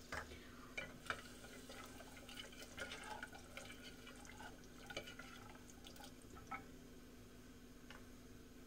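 Faint sloshing of watery masala gravy stirred with a spoon in an open aluminium pressure cooker, with a few light clicks of the spoon against the pot. A steady low hum runs beneath.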